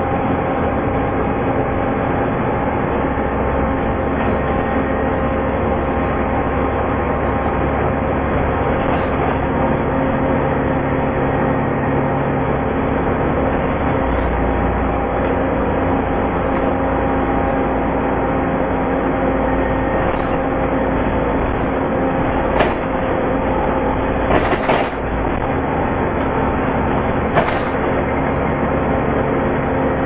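Volvo B7TL double-decker bus on the move, heard from inside the lower deck: its engine runs with the steady whine of the cooling fan, the 'hoover' sound, over a low rumble. A few short knocks and rattles come in the last several seconds.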